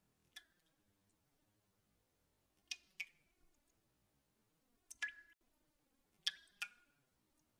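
Faint sharp clicks, each with a short ringing note after it, about seven of them at irregular intervals, some in close pairs.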